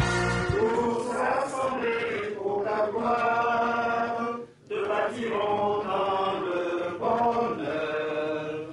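Men's voices singing a slow chant in long held phrases, with a brief pause about four and a half seconds in.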